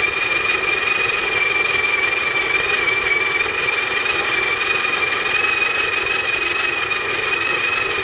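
Breville Smart Grinder (BCG800) burr grinder running steadily with a high motor whine, grinding coffee beans into a portafilter on an automatic timed dose.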